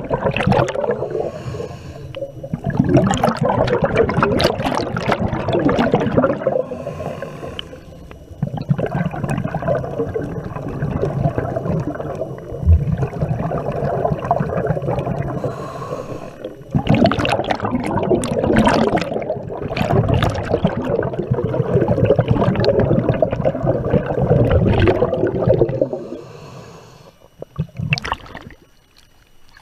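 Underwater bubbling and gurgling from a diver, in long loud stretches broken by short lulls every several seconds, then quieter with a brief splash near the end as the camera breaks the surface.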